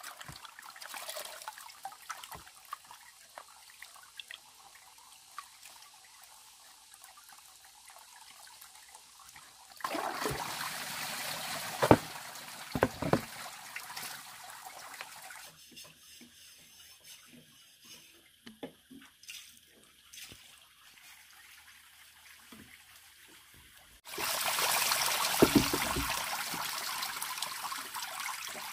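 Water pouring and trickling in spells, loudest about a third of the way in and again near the end, with a few sharp knocks in between.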